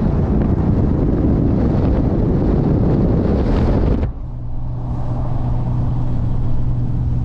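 A Dodge Ram 1500 pickup driving on a snow-covered road, heard from outside the open window: a loud, rough rush of wind buffeting the microphone, mixed with tyre and road noise. About four seconds in it cuts abruptly to the steadier, slightly quieter low drone of the truck heard from inside the cab.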